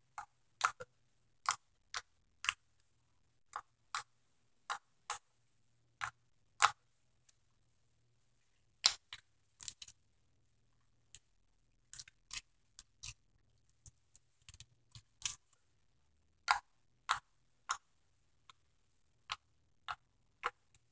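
Slime being squeezed, folded and pressed by hand, giving a string of sharp clicks and pops, irregular at about one or two a second with short pauses.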